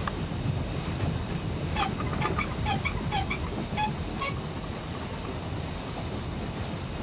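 Two-cylinder steam-driven towing winch running, with a steady hiss of steam over a low rumble. A run of short, high squeaks comes in about two seconds in and lasts a couple of seconds.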